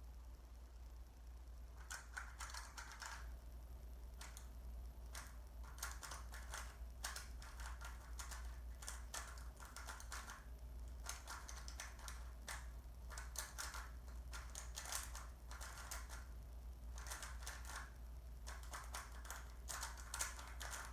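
Rubik's cube being turned fast in a speed solve: the plastic layers click and clack in quick irregular bursts, starting about two seconds in.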